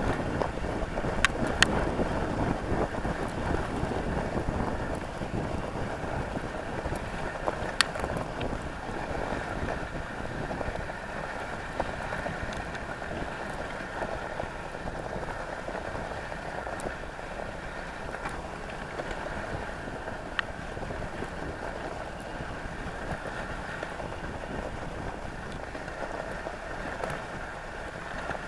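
Dog sled runners sliding over a packed snow trail: a steady hiss with wind on the microphone, and a few sharp clicks now and then.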